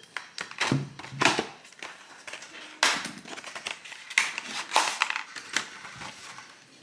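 Packaging being opened and handled by hand: a series of irregular rustles and crackles, the loudest about three and five seconds in.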